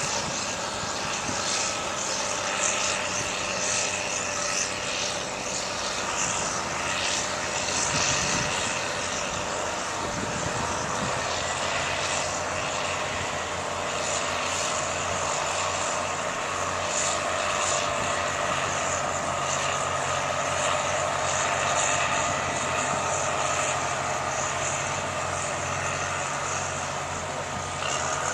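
Heavy diesel construction machinery, bulldozers working the pumped beach sand, running as a steady engine drone over an even hiss, with a deeper low tone setting in about two-thirds of the way through.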